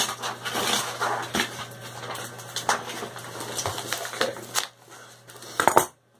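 Plastic-and-paper wrapping of a mailed package crinkling and rustling as it is opened by hand, a dense run of crackles that thins out after about four and a half seconds. A couple of sharp clicks come just before the sound cuts off.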